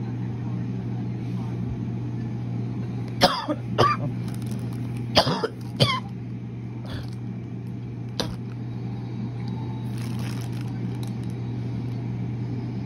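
A person coughing, two quick coughs and then two more, over a steady low hum.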